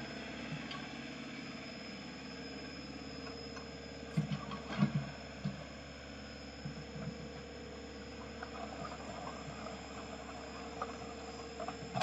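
Mini excavator running steadily, heard faintly, with a few short knocks and clanks from the machine about four to five seconds in and again near the end.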